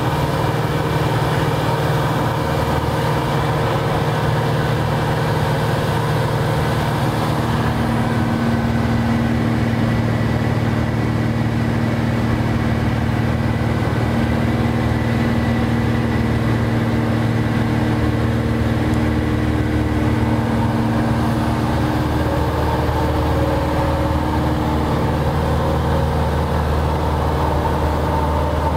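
Cessna 180's six-cylinder piston engine and propeller droning steadily in flight, heard inside the cabin with wind hiss. The higher hiss drops a little about eight seconds in.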